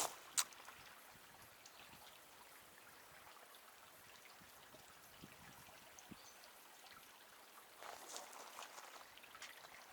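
Faint, steady trickle of a small creek, with one sharp click about half a second in and a few brief rustles near the end.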